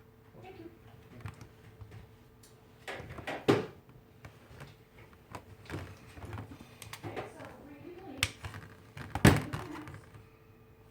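Scattered light clicks and knocks of small tools and parts being handled on a workbench, with two louder knocks about three and a half and nine seconds in, over a faint steady hum and faint voices.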